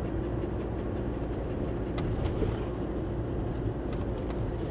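Steady engine and road rumble inside the cab of a Fiat-based motorhome driving along a paved road, with a low steady hum and a couple of light ticks about halfway through.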